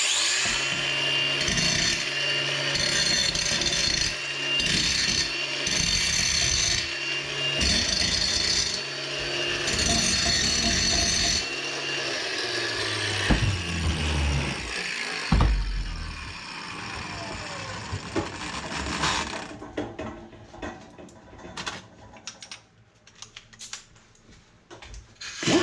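A power grinder grinding the worn steel hook of a mini excavator's quick coupler clean for welding, running under load for about twelve seconds. It is then switched off and winds down with a falling whine over several seconds, followed by a few light clicks of handling.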